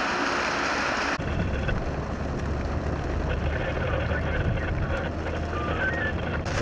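Steady noise of heavy rain or running water; about a second in it cuts to a deep, steady rumble mixed with wind on the microphone and faint voices.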